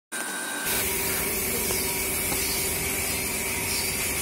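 Steady hissing noise with a faint steady hum, cutting in suddenly just after the start and running on unchanged, with a couple of faint ticks.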